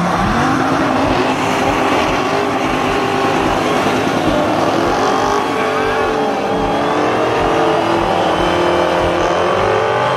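Dodge Challenger SRT's V8 held at high revs through a burnout, the rear tyres spinning in place. The engine note climbs just at the start, then stays high, wavering a little and sagging briefly past the middle before picking up again.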